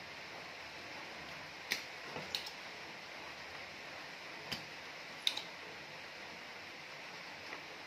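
About five short, sharp clicks and taps from tools working on a TV circuit board while a chip is being desoldered, over a steady faint hiss.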